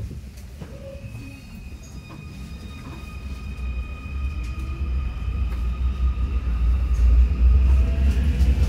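Munich U-Bahn C2 metro train running, a low rumble growing steadily louder, with several thin steady high-pitched electronic whine tones from the train above it.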